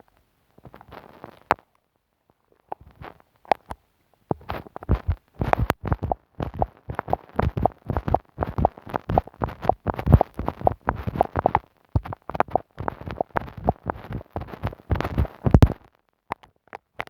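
Glue stick rubbed directly on a microphone, giving close, sticky crackles and pops. There are a few soft strokes at first, then a dense run of quick sticky clicks from about four seconds in that stops shortly before the end.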